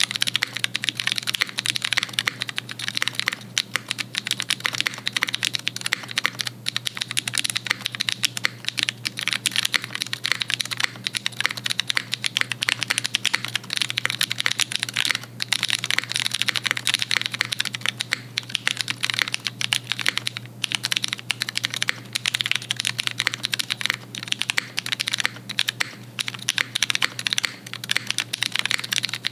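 Fast, continuous typing on a custom-built mechanical keyboard: a dense, uneven stream of key clacks with no pause.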